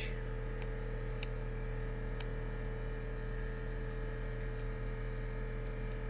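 Steady electrical hum made of several unchanging tones from the amplifier-driven microwave oven transformer rig, with faint scattered ticks.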